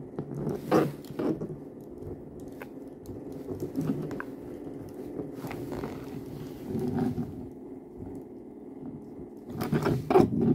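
Handling noise from the plastic and die-cast Legioss action figure as its joints are worked by hand: intermittent scraping, rubbing and small clicks of the parts, louder about a second in, around six seconds and near the end. A steady low hum runs underneath.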